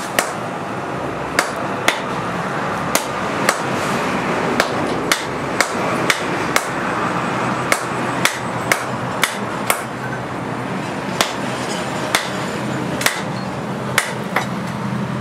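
A hand hammer forging a red-hot steel bar on a makeshift cylindrical steel anvil. It gives sharp metallic strikes, about two a second in uneven runs with short pauses, over a steady hum.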